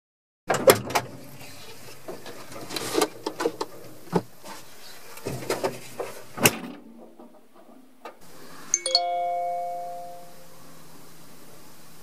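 Knocks and clatter of someone climbing into a combine harvester's cab, ending in one loud knock about six and a half seconds in. About nine seconds in an iPhone on a cooler lid starts ringing with an incoming call, a chiming ringtone that rings out and fades.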